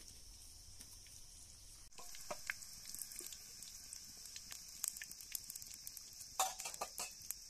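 Bread cooking in a hot pan: a steady sizzle with many small crackles and pops, louder from about two seconds in and with a cluster of sharper pops near the end.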